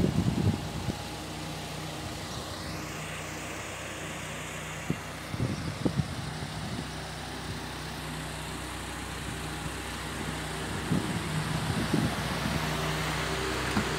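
A vehicle engine idling with a steady low hum, with a few low bumps and rumbles on the microphone near the start, about five seconds in and near the end.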